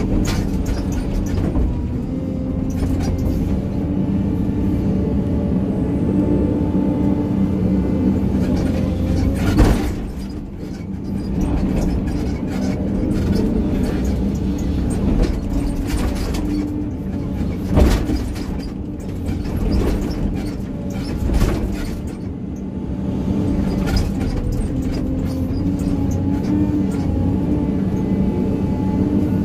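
Excavator engine running steadily under working load while it grades ground, its pitch shifting slightly as the hydraulics take load. A few sharp knocks cut through it, the loudest about ten, eighteen and twenty-one seconds in.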